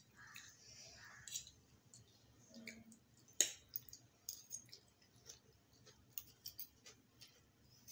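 Quiet eating sounds of veg hakka noodles eaten with forks: scattered small clicks of forks against plates and soft wet mouth sounds. One sharper click comes about three and a half seconds in.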